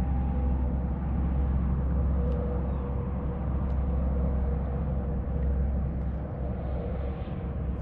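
Steady low rumble with a faint, steady hum running through it.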